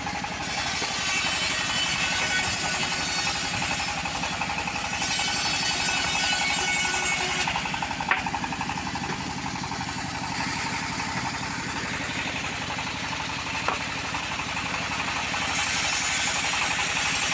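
Stationary diesel engine driving a homemade bandsaw mill, running steadily with a fast, even chugging beat. A sharp knock comes about eight seconds in, and another near fourteen seconds.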